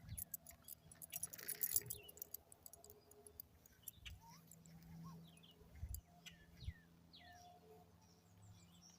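Faint birds chirping outdoors, short scattered chirps, with light clicks and a brief rustle about one and a half seconds in.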